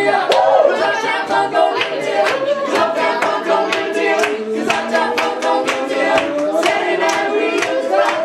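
Men's a cappella vocal group singing an upbeat song, with guests clapping along in a steady beat for most of it.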